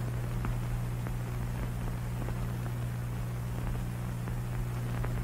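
Steady hiss and low hum of an old film soundtrack, with a few faint crackles.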